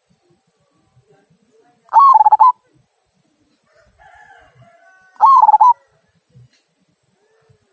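Local zebra dove (perkutut) with a 'kung' voice singing: two short, loud cooing phrases about three seconds apart, each with a quick wavering note.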